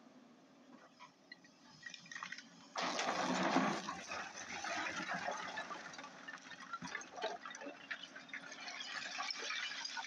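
Hyundai 210 excavator's bucket digging into a pile of broken quarry stone. About three seconds in, a sudden continuous rush of rock scraping and clattering starts and keeps on, over the faint steady hum of the excavator's diesel engine.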